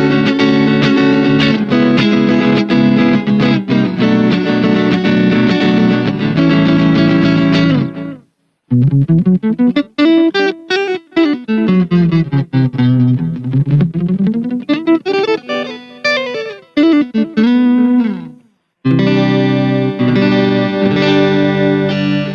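Electric guitar played through a Laney Mini Ministack B-Lion battery-powered mini amp. It starts with held chords for about eight seconds. After a short break comes a single-note line whose notes slide up and down in pitch, and after a second brief break the chords return near the end.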